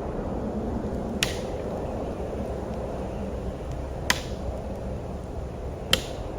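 Steady low rushing of wind, with three sharp clicks, about a second, four seconds and six seconds in.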